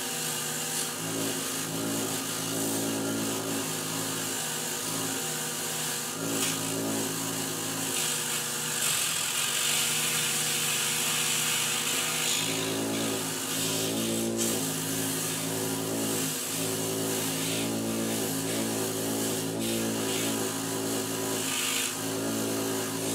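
5-inch Harbor Freight bench grinder running, its motor humming steadily, as a head bolt's threads are held against the spinning nylon bristle wheel to scrub off thread sealant. The brushing hiss swells and fades as the bolt is pressed in and turned, loudest about halfway through.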